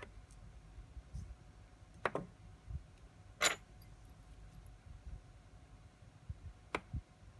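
Three small sharp metallic clicks of watchmaker's tools and watch parts handled on the workbench, the middle one the loudest.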